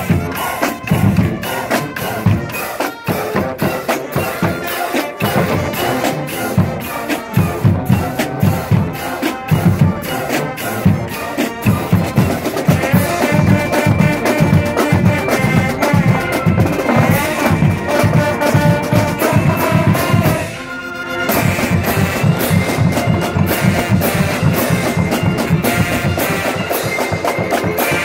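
College marching band playing loudly, with brass, woodwinds and a drumline of snare and bass drums. Steady drum beats run throughout, and the brass chords grow fuller about halfway through. The band breaks off briefly a little after two-thirds of the way in, then comes straight back in.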